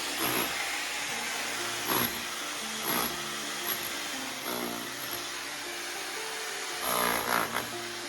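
A power tool running continuously and loudly, surging several times as it works.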